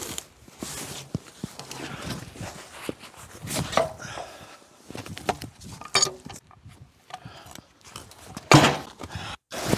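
A frozen pine log being rolled and shifted into place on a portable sawmill bed: irregular knocks, scrapes and footsteps, with one loud thump about eight and a half seconds in. The mill's engine and blade are not running.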